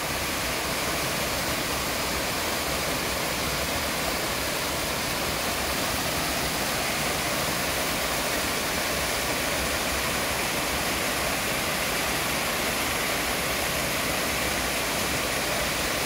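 Small roadside waterfall cascading down, a steady rushing of falling water that holds an even level.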